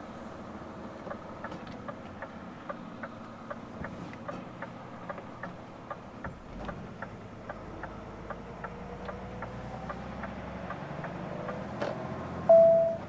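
Truck cab turn-signal indicator ticking steadily, about two and a half clicks a second, over the running engine, whose pitch rises as the truck pulls away. A short, loud beep sounds near the end.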